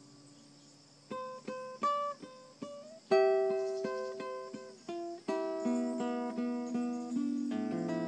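Classical nylon-string guitar played fingerstyle: a soft held chord, then single plucked notes from about a second in, a loud full chord about three seconds in that rings on, another chord a little after five seconds, and quick repeated notes near the end.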